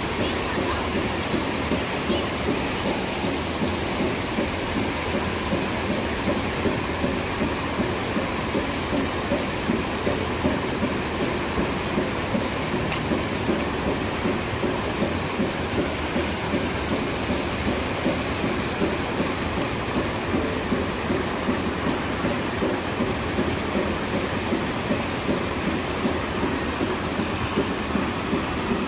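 Water pouring steadily out of waterslide outlets into a splash pool, an even, unbroken noise.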